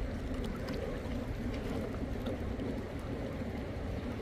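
Fast river water rushing steadily, a continuous wash with a deep rumble underneath.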